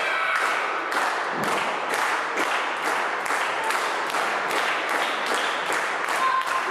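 Wrestling crowd applauding, with clapping in a steady beat about twice a second.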